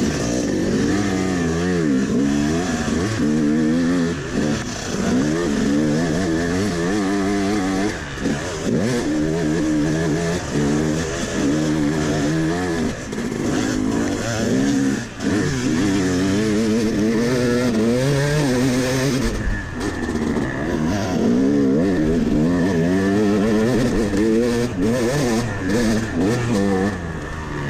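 Yamaha 250 two-stroke dirt bike engine heard from on the bike while it is ridden hard on a dirt trail, revving up and falling back again and again through throttle and gear changes. The throttle is briefly closed a few times.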